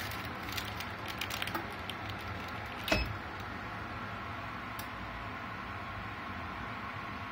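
Mug heat press being worked by hand: a few light clicks as the clamp lever is handled, then one sharp metallic clunk about three seconds in as the lever swings over and the clamp opens, and a faint click near five seconds. A steady low hum runs underneath.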